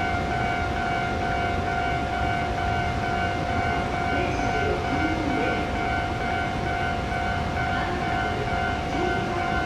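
Electric train stopped at a platform, its onboard equipment giving a steady, unchanging high whine over a low rumble.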